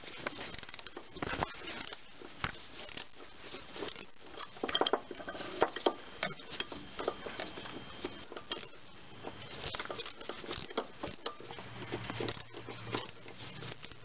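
Quarter-inch ratchet with a universal joint and 3-inch extension clicking in short, irregular runs, with light metal clinks of the socket rig, as a 10 mm nut that has just been broken loose is turned out.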